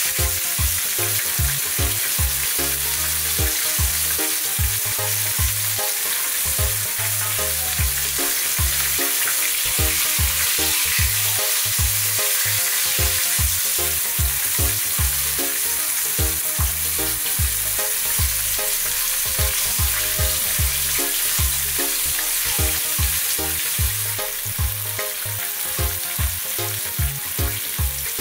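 Floured fish pieces sizzling as they shallow-fry in hot oil in a nonstick pan, a steady spitting hiss. A steady beat of background music runs underneath.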